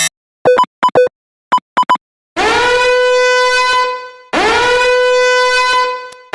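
Electronic alarm sound effects: a few short beeps, then a buzzy horn-like warning tone that swoops up into a steady pitch and holds for about two seconds before fading, sounded twice.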